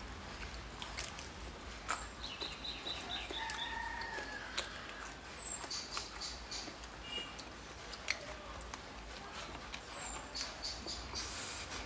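Close-up eating sounds: chewing and lip smacks with sharp clicks of wooden chopsticks against the plate. Birds chirp in the background, with a quick run of high peeps a couple of seconds in and short chirps later.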